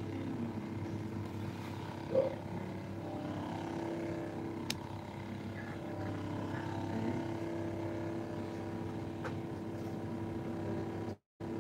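Steady machine hum at a constant pitch, like a motor running, with a single sharp click about four and a half seconds in; the sound cuts out briefly near the end.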